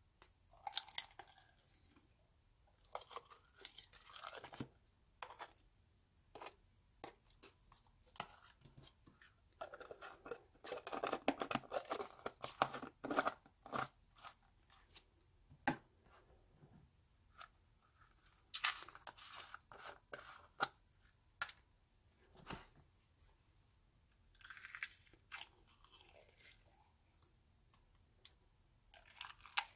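Foam-bead slime being spooned and squeezed out of a plastic jar into a plastic tub, crunching and crackling with scattered clicks in irregular spells, busiest about ten to fourteen seconds in.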